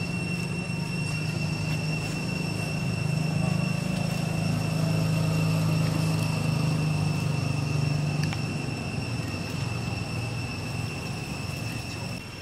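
Low engine rumble that swells in the middle and fades after about eight seconds, with a thin steady high whine over it.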